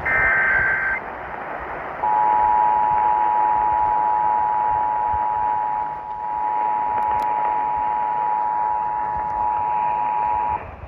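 Emergency Alert System test over radio. It opens with a one-second burst of the screechy SAME digital header data tones. After a brief gap, the EAS two-tone attention signal (853 and 960 Hz sounding together) holds steady for about eight and a half seconds, then cuts off near the end. A hiss of radio noise runs underneath.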